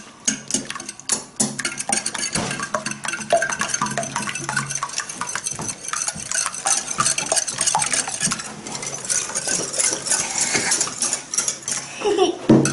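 Metal balloon whisk beating raw eggs in a glass bowl: rapid, continuous clinking and scraping of the wires against the glass. A child laughs briefly near the end.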